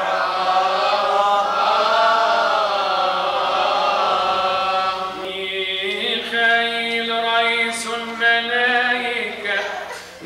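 Coptic liturgical chant: voices singing long, drawn-out melismatic notes. The melody shifts to a new, steadier line about five seconds in.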